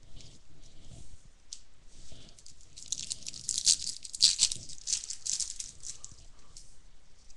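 Wrapper of a 2011 Topps baseball card pack crinkling and tearing as it is ripped open, with a dense run of sharp crackles from about three to six seconds in.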